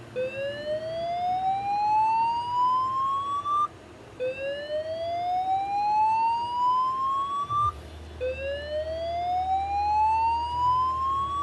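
Fire alarm voice-evacuation speaker sounding a whoop tone: three loud rising sweeps, each about three and a half seconds long, climbing in pitch and cutting off sharply before the next. It is the fire evacuation signal that the following spoken message announces as indicating a report of a fire in the building.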